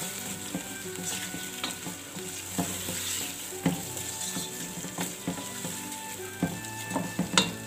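Chicken pieces sizzling in hot oil with tomato and ginger-garlic masala while a wooden spatula stirs and scrapes them around a non-stick pot, with frequent light knocks of the spatula on the pan and a sharper knock near the end.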